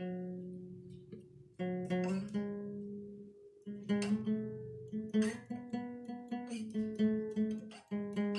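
Solo acoustic guitar freestyle jam: a chord rings out at the start, another comes in about a second and a half later, then strummed chords and picked notes follow quickly one after another.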